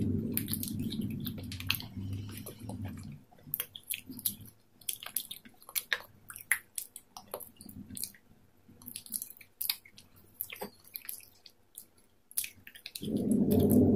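Close-miked chewing of salad greens: irregular crisp crunches and wet mouth clicks. A low rumble lies under the chewing for the first three seconds and comes back about a second before the end.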